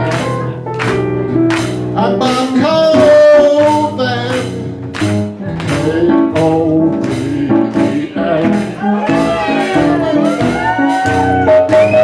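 Live band of piano, guitar and drums playing an instrumental break in a comedy song, with a steady drum beat.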